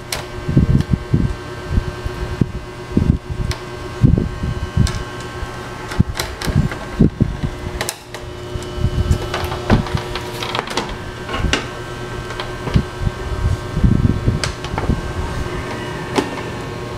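Irregular knocks and clicks from the steel chassis and panels of an amplifier being handled during reassembly, over a steady mechanical hum.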